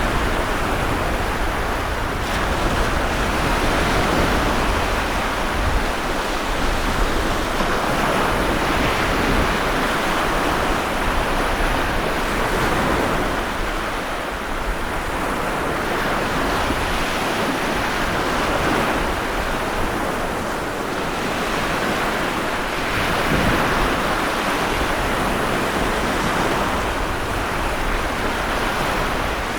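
Stormy sea surf: waves breaking and washing in a continuous rush that swells and eases slowly, with wind.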